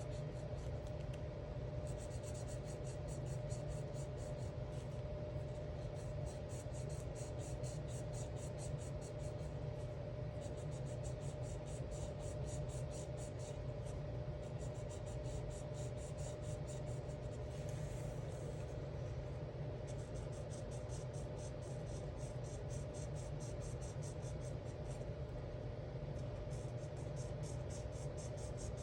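Alcohol marker tip scratching over coloring-book paper in quick back-and-forth strokes, in runs broken by short pauses, over a steady low hum.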